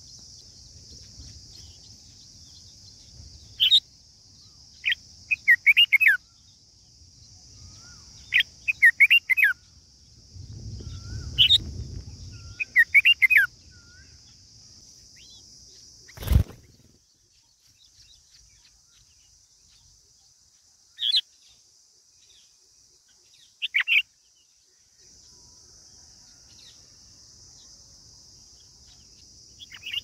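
Red-whiskered bulbuls chirping at the nest: short bursts of quick chirps, scattered through, over a steady high hiss. One sharp click about halfway.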